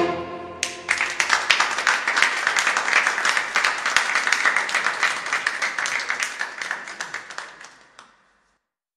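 The last chord of a saxophone quartet rings off, and an audience breaks into applause about a second in; the clapping dies away near the end.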